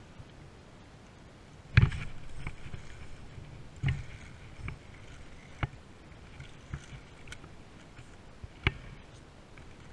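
Handling noise from a spinning rod and reel while a small smallmouth bass is hooked and reeled in: a few sharp knocks and bumps against the chest-mounted camera, the loudest about two seconds in, over the faint cranking of the spinning reel.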